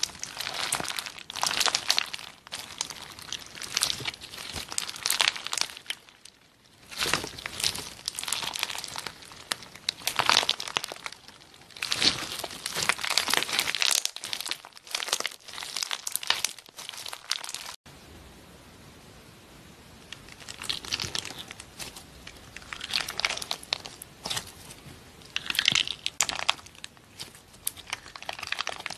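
Hands squeezing and kneading clear slime packed with small plastic charms, making crinkly, crackling squelches in waves a second or two long, with brief lulls.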